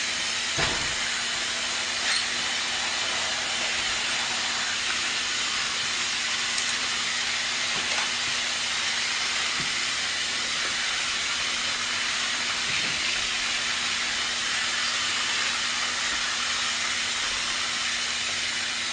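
Steady hiss with a low hum underneath and a few faint clicks.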